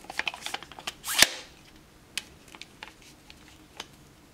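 AR-15 collapsible stock being worked off its buffer tube: a quick run of sharp plastic-and-metal clicks, one louder clack about a second in, then a few light scattered clicks.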